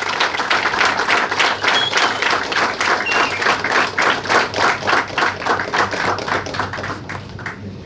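Audience clapping in unison, a steady rhythm of about four claps a second that dies away near the end.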